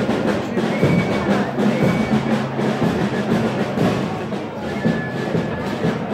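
Band music with drums playing steadily, with short held high notes now and then.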